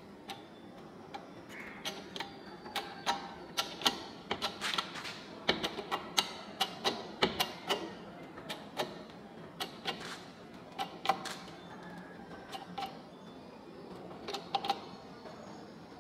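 Homemade hydraulic press brake worked by hand with its 5-ton bottle jack: sharp irregular clicks and knocks from the jack's pump handle, stroke after stroke, as the ram presses a metal sheet into a bend. The clicking eases off briefly about three quarters of the way through, then comes back.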